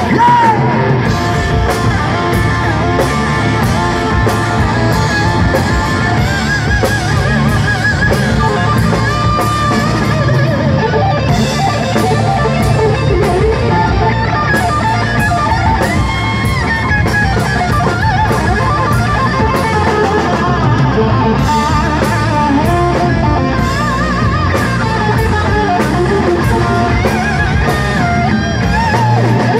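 Live heavy metal band at full volume: an electric guitar playing a lead line with string bends and slides, over bass and a drum kit.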